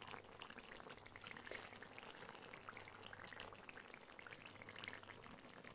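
Faint, irregular bubbling and sizzling of the sauce simmering in a clay tagine over a charcoal brazier.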